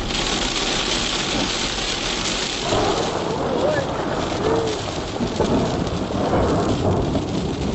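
Heavy rain pouring down in a steady, dense hiss, with faint voices briefly audible under it in the middle.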